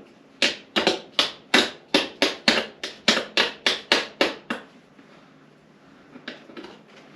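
A quick run of about a dozen sharp metal taps, roughly three a second, then a few fainter ones near the end, as a stuck motorcycle seat hinge pin is worked loose.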